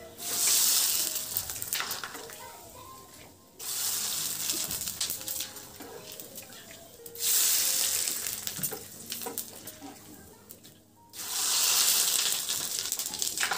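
Dried potato-sago papads dropped into hot cooking oil in a kadhai, sizzling hard as each one hits the oil and puffs up. Four loud bursts of sizzling, each fading over a few seconds before the next.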